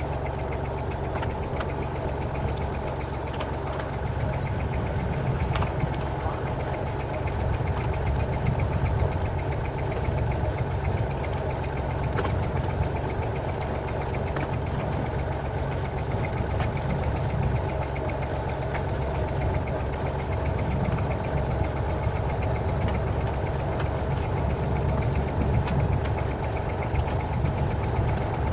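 Diesel engine of a narrow-gauge forest railway train running steadily under way, heard on board as the train rolls along the track. A few sharp clicks from the wheels on the rails break through now and then.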